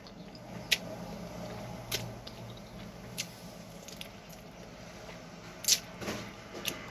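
Someone eating a grilled chicken wing: wet, squishy mouth sounds with about five sharp smacks spread out over a steady low hum.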